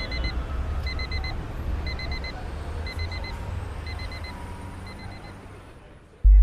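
Alarm-clock-style electronic beeping in quick groups of four, about once a second, fading away gradually over a low rumble. A short, loud low thud comes right at the end.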